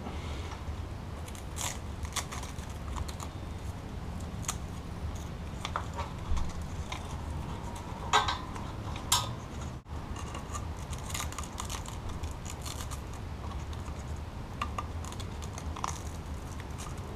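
Scattered small clicks and light metallic rattles of hands handling a motorcycle clutch cable and its fittings, with a few sharper knocks around the middle, over a steady low hum.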